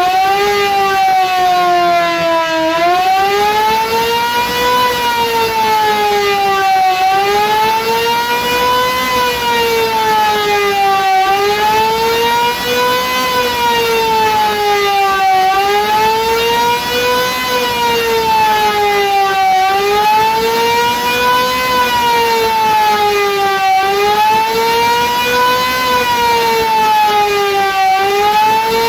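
Restored Elektror S2a electric civil-defence siren sounding a wail, its pitch rising and falling about once every four seconds: the air-raid alarm (Luftalarm) signal.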